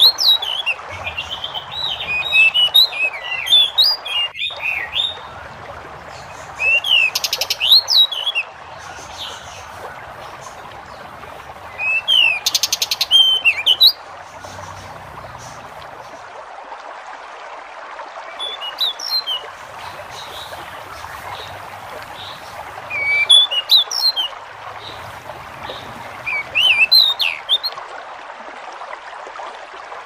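Pied bushchat (jidengan) singing short phrases of quick, sliding whistled notes, about six phrases separated by pauses, over a steady background hiss.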